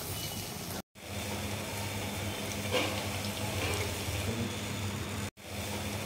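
Multigrain lentil vadas deep-frying in hot oil in a kadai: a steady bubbling sizzle with a low hum under it, cut off briefly twice, about a second in and near the end.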